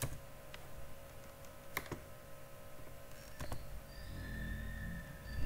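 A few separate computer keyboard and mouse clicks, sparse and faint, over a low steady hum.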